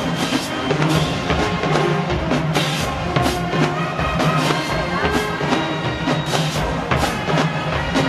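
HBCU show-style marching band playing at full volume: brass, including trombones, over a drumline with bass and snare drums keeping a steady beat.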